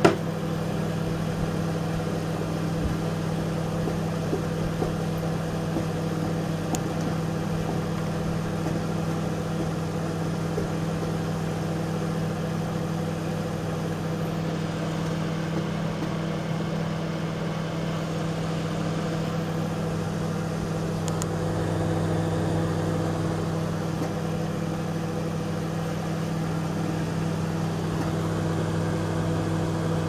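Microwave oven running at full power, a steady electrical hum with its fan, the magnetron fed through a 1.08 µF high-voltage capacitor and drawing 6 amps from the mains. A single sharp click sounds right at the start.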